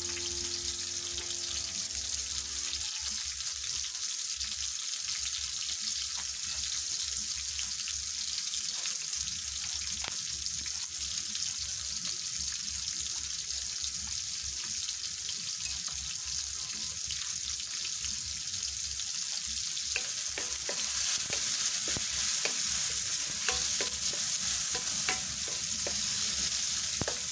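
Onions and tomatoes sizzling in hot oil in a metal wok, a steady high hiss. In the last several seconds a wooden spatula stirs them, adding light scrapes and clicks against the wok.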